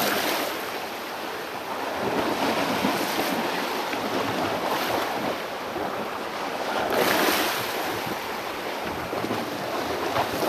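Small waves washing and splashing over shoreline rocks, with wind buffeting the microphone; the wash surges a few times and is loudest about seven seconds in.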